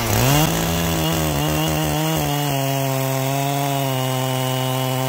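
Two-stroke chainsaw at full throttle ripping lengthwise through a log, its bar guided by a rail-mounted mill carriage. The engine pitch wavers for the first couple of seconds, then holds steady as the saw settles into the cut under load.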